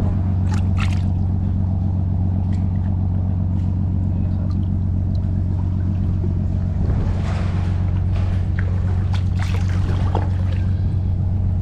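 A boat engine runs steadily with a low, even hum. Over it, small water splashes and drips: a hand moving in water, about seven seconds in and again around ten seconds.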